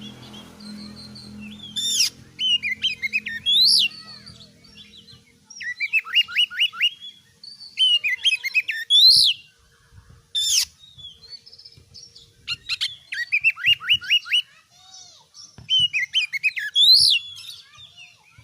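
Oriental magpie-robin singing loudly in a run of separate phrases. Each phrase is a quick series of rising notes mixed with sharp, high whistles, and short pauses fall between phrases.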